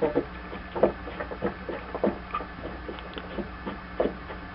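Irregular light metallic clicks and knocks from a badly worn mower-deck idler pulley being handled on its shaft, over a low steady hum.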